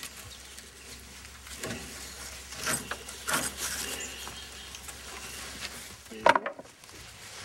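Rope and leather harness being handled and tied off at a horse cart's shaft: scattered rubbing and rustling, with one short, louder noise about six seconds in.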